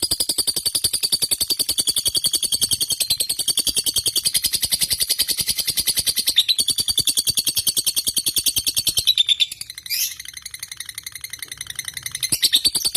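Lovebird singing a long, unbroken run of rapid, evenly pulsed high chattering, with a short dip about ten seconds in before it carries on, louder near the end.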